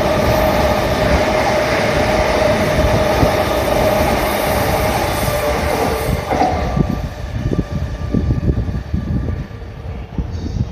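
JR East E233-series electric train running along the track: loud wheel-on-rail noise with a steady tone for about six seconds, then quieter, with uneven low knocks of the wheels.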